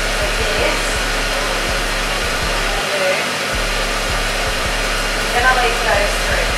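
Steady rush of a machine blowing air, with faint voices beneath it.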